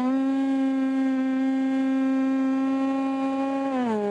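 Radio-controlled airplane's motor and propeller heard from a camera mounted on the plane, running at a steady high pitch, then dipping in pitch near the end.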